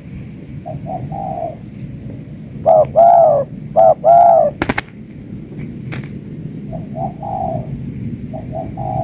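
Spotted doves cooing: soft coo phrases, then a loud, close series of coos about three seconds in, followed by fainter coos again near the end. Two sharp clicks sound in the middle.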